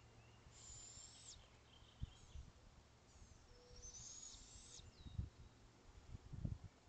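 Two raspy, hissing calls from an owlet in a nest box: the first under a second long, the second about a second and a half. A few low thumps come near the end.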